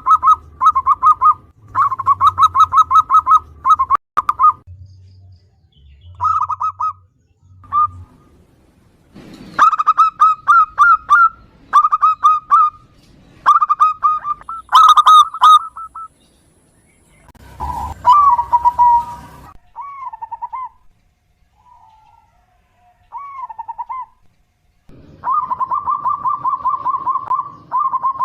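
Zebra dove (perkutut) singing: phrases of rapid staccato cooing notes repeated with short pauses, and a few lower, bending coos near the middle.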